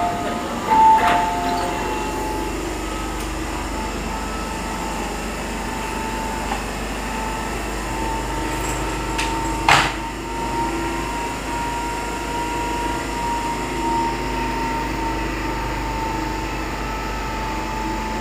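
MTR Kwun Tong Line metro train standing at the platform with its doors open, its on-board equipment humming with a steady high whine. A short two-tone squeal comes about a second in, and a single sharp click near the middle.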